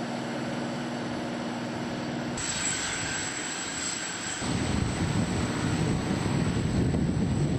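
Airplane engines running, heard across several cuts. First a steady hum, then from about two and a half seconds in a high whine over the noise, then from about four and a half seconds in a louder, low, rough rumble.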